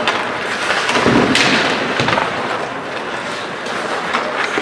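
Ice hockey play in an arena: skates scraping on the ice and sticks clattering, with a thump a little over a second in.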